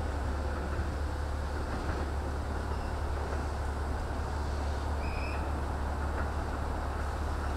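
Diesel railcar's engine idling steadily while the train stands at the platform, a constant low hum. A brief high squeak sounds about five seconds in.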